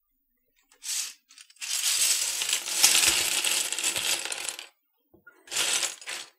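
Loose plastic keycaps from a Canon TypeStar 4 keyboard tipped out of a mesh sieve onto a cutting mat, clattering for about three seconds after a brief rattle about a second in. Near the end a hand spreads the pile of keycaps, giving a second, shorter clatter.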